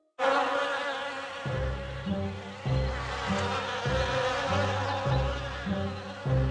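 Swarm of bees buzzing steadily, a cartoon sound effect. Background music with a bouncing bass line comes in about a second and a half in.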